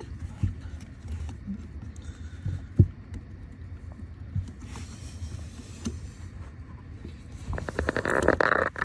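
Hands fitting a cover onto a car pedal: scattered light knocks with one sharp knock about three seconds in, then a quick run of clicks and clatter near the end as the cover is pushed and slid on.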